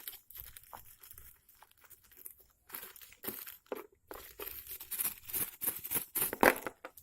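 Crinkling and rustling of the packaging around a phone's bundled earphones as they are unwrapped, in irregular crackles that grow busier and louder in the second half.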